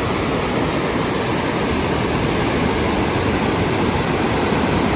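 A waterfall rushing: a loud, steady, unbroken wash of falling water.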